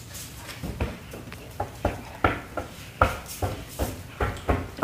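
An irregular series of about a dozen sharp clinks and knocks of kitchenware being handled: a plastic blender jar, drinking glasses and a metal sieve.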